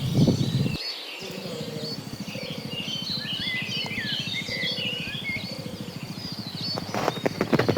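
Many small birds chirping and twittering in short, rapid calls over a steady low background noise, with bursts of low rumbling noise at the start and again near the end.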